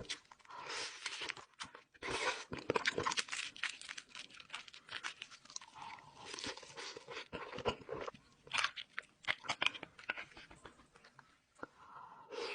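Crunchy food being bitten and chewed close to the microphone, in irregular bursts of crackling crunches with short pauses between bites.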